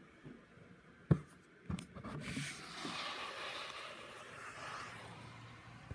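Two sharp knocks about a second in, then a steady hiss of falling hail that swells a moment later and keeps on.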